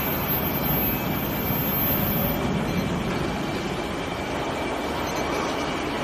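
Steady rumbling machinery noise with a faint steady high whine, from induction weld-preheating equipment running while it heats a pipe joint.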